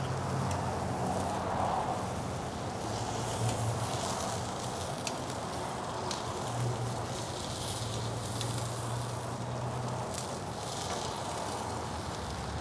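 Raw bratwurst sizzling on the grate of a Hasty-Bake charcoal grill as a steady hiss, with a few faint clicks of metal tongs as the sausages are moved.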